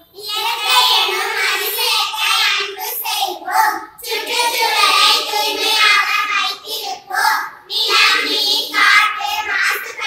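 A group of young children singing together in unison, in phrases of a few seconds broken by short pauses.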